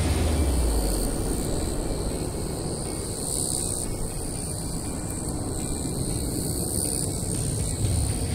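Low jet-engine rumble of an Airbus A320neo's engines during takeoff, easing a little early on and swelling again near the end.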